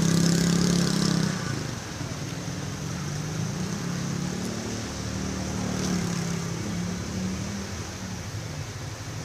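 An engine running, its pitch wavering up and down. It is loudest for the first second or so, then runs on more steadily and a little quieter.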